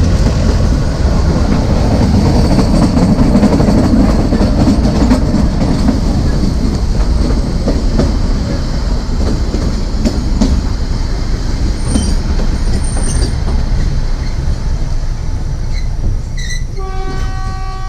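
Narrow gauge train running on its rails: a loud steady rumble and clatter of wheels and coaches, with brief high wheel squeals about two-thirds of the way through. Near the end the ZDM4A diesel locomotive's horn sounds one long steady note.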